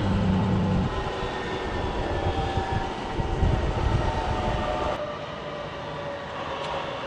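Ansaldo Breda M32 articulated tram running along street track: a low rumble of wheels on rail with a faint steady whine, amid city traffic. The sound changes abruptly about five seconds in.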